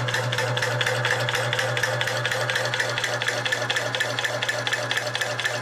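Homemade high-pressure air compressor running steadily, building pressure against a deadheaded outlet: a fast, even pulse of its piston strokes over a steady motor hum.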